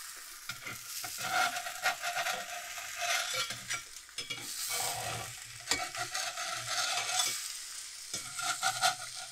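An egg sizzling as it fries in bacon grease in a Lodge cast iron skillet. A slotted metal spatula scrapes and taps against the pan now and then as it is worked under the egg.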